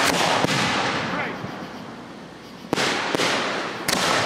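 Aerial fireworks shells bursting: a loud bang at the start, another about half a second in, then three more between about two and a half and four seconds in, each trailing off.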